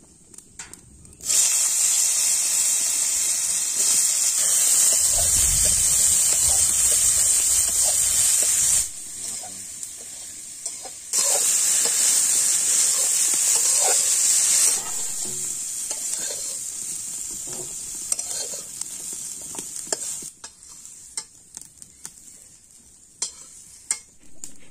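Cut brinjal (eggplant) pieces hitting hot oil in a kadai and sizzling loudly at once. The sizzle drops off suddenly, flares up again a couple of seconds later, then fades, with a few light clicks and knocks near the end.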